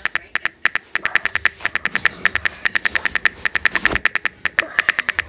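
iPad on-screen keyboard key clicks as a message is typed: a quick, uneven run of sharp ticks, several a second.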